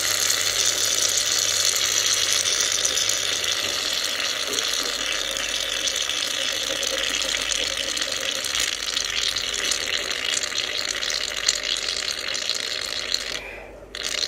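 Aerosol can of foam hissing steadily as it is sprayed. It is nearly empty, so the foam comes out runny. The hiss cuts off briefly near the end.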